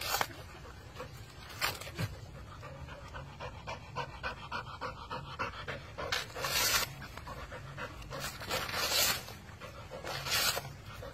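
A dog tearing the fibrous husk off a coconut with its teeth, breathing hard and panting as it works, with repeated noisy ripping and pulling bursts that grow longer in the second half.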